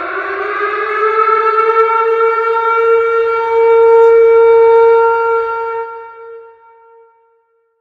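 Tornado warning siren wailing: its pitch climbs, then holds steady at its loudest before the sound fades out near the end.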